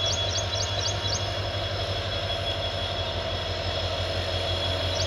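WDP4D diesel locomotive's EMD two-stroke engine running steadily as it slowly reverses with its coaches, a pulsing low hum with a steady high whine over it. A quick run of six short high chirps sounds in the first second.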